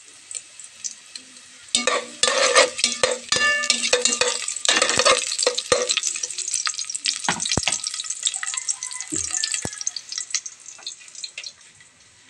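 Garlic and onion sizzling in hot oil in a metal pot, with a utensil scraping and clattering against the pot as they are stirred, most busily from about two to six seconds in. The stirring thins to a few scattered knocks, and the sizzle fades near the end.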